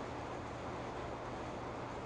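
Steady background hiss with a faint low hum: room tone, with no distinct handling sounds.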